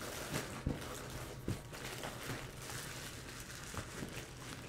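Rustling and crinkling of white packing wrap being handled and pulled from a cardboard box, with a few light knocks.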